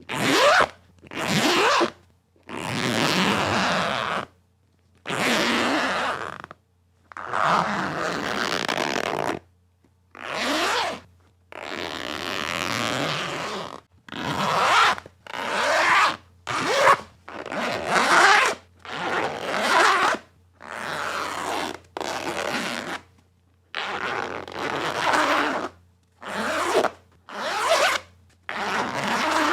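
A zipper being zipped again and again, about eighteen separate pulls, some quick and some drawn out over a second or two, each a raspy, buzzing run of teeth.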